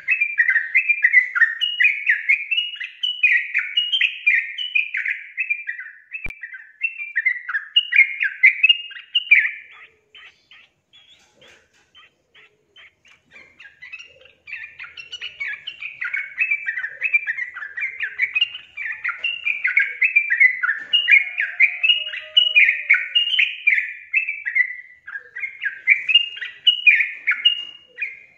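Yellow-vented bulbul singing long runs of rapid, bubbly chattering notes, each falling in pitch. About ten seconds in the song breaks off for some four seconds, leaving only faint clicks, then starts again and runs on.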